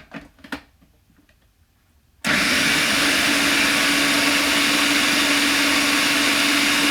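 Electric food processor switched on about two seconds in, its motor running steadily with a constant hum as it minces green pepper and other vegetables.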